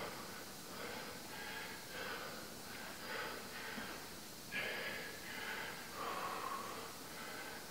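A man breathing hard from exercise, with a short, forceful exhale roughly once a second.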